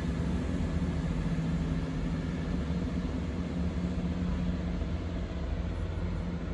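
Class 166 Turbo diesel multiple unit pulling away, its underfloor diesel engines giving a steady low drone that fades a little toward the end as the train moves off.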